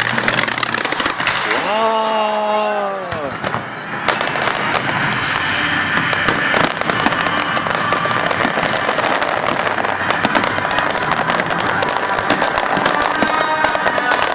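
Fireworks display: dense, overlapping bangs and crackling from bursting aerial shells. About two seconds in, a person's voice calls out in one drawn-out cry over the bursts.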